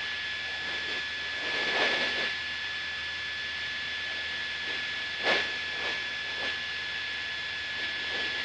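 Steady in-flight cabin noise of a Cessna Skyhawk light plane, heard as an even hiss with a faint, steady high tone over it. There is a brief louder rush about five seconds in, and softer ones around two and six and a half seconds in.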